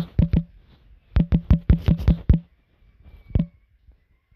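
Keypress clicks from a smartphone's on-screen keyboard as a search is typed: a quick run of about four clicks at the start, a faster run of about eight from about a second in, and a single click near the end.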